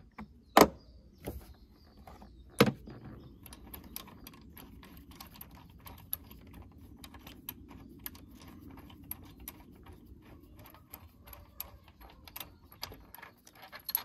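Engine torque mount bolts being worked out by hand, with small metal parts handled: two sharp metallic knocks near the start, then a long run of light, irregular clicks and ticks.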